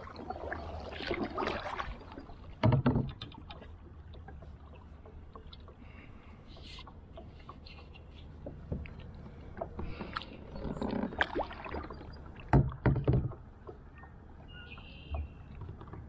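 Kayak paddle strokes splashing in the water, with a few short thumps, the loudest about three seconds in and again near thirteen seconds.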